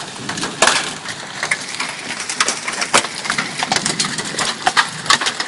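Large hailstones, about mothball size, falling hard and striking parked cars and the ground: a dense, irregular clatter of sharp cracks and knocks over a steady hiss. Louder single strikes come about half a second in and again about three seconds in.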